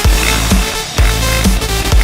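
Electronic dance music with a heavy bass kick drum about twice a second.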